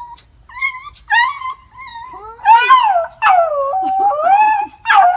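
Beagle-type hound whining and howling in excitement while greeting its owner. Short whines come first, then from about halfway louder, longer howls that bend up and down in pitch.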